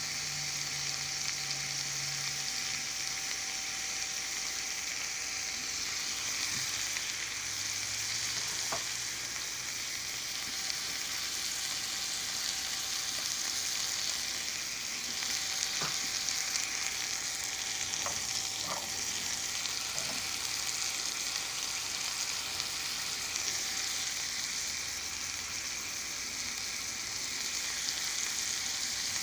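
Skinless chicken breasts sizzling steadily in melted butter in a skillet as they brown, with an occasional small pop.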